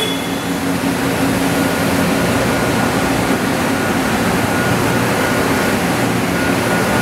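Steady machine-shop hum from running machinery, with a low drone under an even rush of noise.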